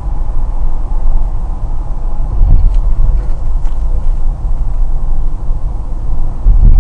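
Car driving at about 60 km/h on a highway, heard from inside the cabin: a steady, fluttering low rumble of road and engine noise.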